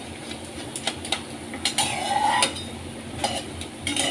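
A steel spoon stirring boondi frying in oil in a kadai, clinking and scraping against the pan in scattered short strokes over a faint steady sizzle.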